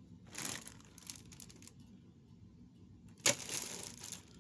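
Plastic bag of costume jewelry being handled, with brief rustling and one sharp click about three seconds in.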